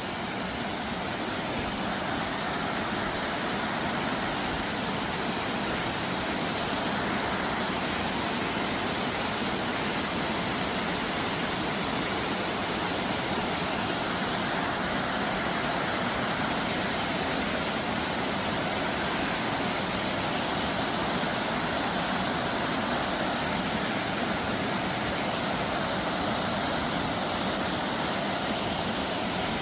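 Waterfall rushing: a steady, even wash of falling water that grows a little louder over the first few seconds.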